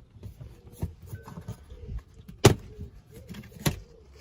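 A few short, sharp plastic clicks and knocks, the two loudest about two and a half and three and a half seconds in: the cover of the car's interior fuse panel being unclipped and taken off.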